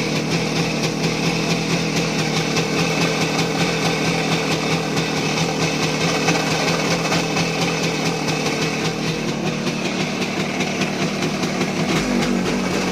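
Voskhod 3M motorcycle's single-cylinder two-stroke engine running steadily with a knock, which the owner suspects comes from the connecting rod and wrist pin or a failing crankshaft.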